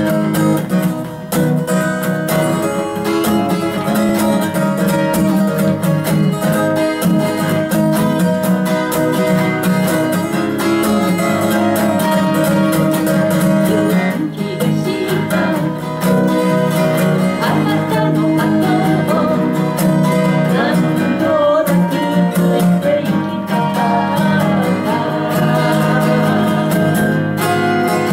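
Two steel-string acoustic guitars strumming chords together, a folk-song guitar accompaniment.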